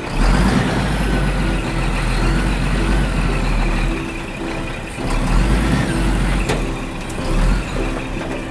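A truck engine running with a deep, steady rumble, over background music with short repeated notes.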